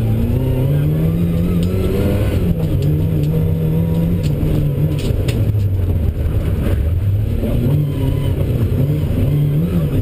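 A Lada rally car's four-cylinder engine, heard from inside the stripped cabin, driven hard on a stage. The revs climb over the first two seconds, drop at a gear change about two and a half seconds in, then fall and rise again with further shifts and lifts. Short sharp knocks come now and then.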